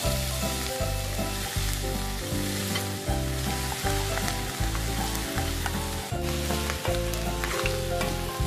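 Boiled pork pieces sizzling as they fry in hot oil with sautéed onion and garlic, a steady frying hiss. Background music with a steady beat plays underneath.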